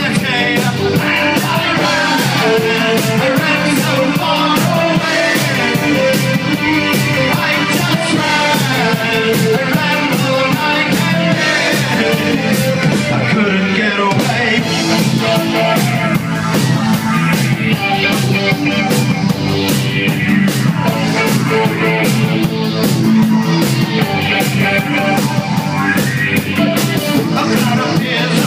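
Live new wave rock band playing: a steady driving drum beat under electric guitar and keyboards.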